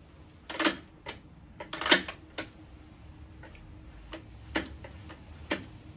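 Several sharp metallic clicks and knocks from handling the controls of an old Mariner 20 HP outboard, the loudest about two seconds in. The gear shift is loose and slips as the engine is worked.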